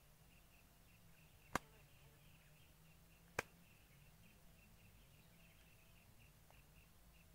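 Two sharp clicks about two seconds apart over faint outdoor background with a quick, rhythmic high chirping that keeps on throughout.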